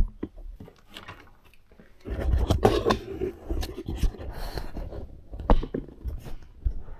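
Portable typewriters being handled and shifted about on a table: a few knocks at first, then from about two seconds in a busy run of bumping, scraping and rattling.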